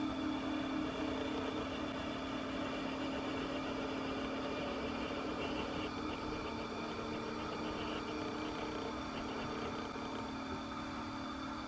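A steady mechanical hum from model railway equipment, with a strong low tone and fainter higher tones, holding level throughout.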